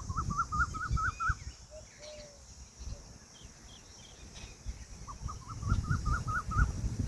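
A bird calling in two quick runs of about seven wavy, rising-and-falling notes, one at the start and another about five seconds in, with fainter notes between them.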